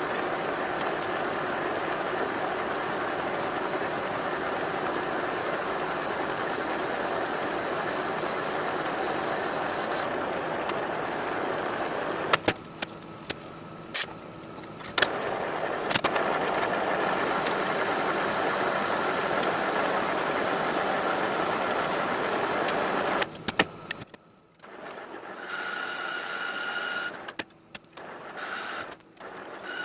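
Metal lathe running and turning an EN8 steel part: a steady machine noise with a high whine. It stops twice with sharp clicks, and near the end it breaks into shorter, quieter stretches.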